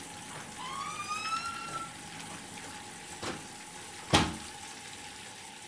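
Bathroom sounds from a bath with warm water: a steady hum and a faint watery hiss, a short rising squeak about a second in, and two small knocks or splashes, the second and louder one about four seconds in.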